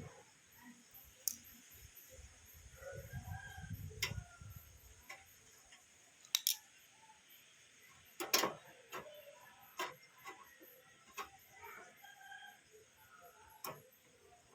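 Scattered sharp clicks and taps of metal against a desktop computer case as the hard disk is screwed back into its bay, with a low rubbing sound about two to five seconds in.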